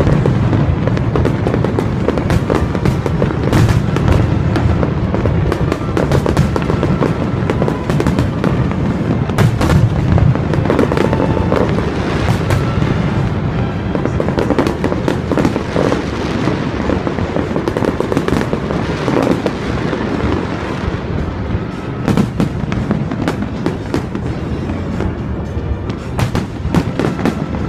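Aerial fireworks bursting one after another without a break: deep booms mixed with dense crackling.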